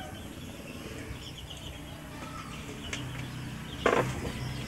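Faint bird chirps over outdoor background noise. About four seconds in there is a sharp knock, and a low steady hum comes up near the end.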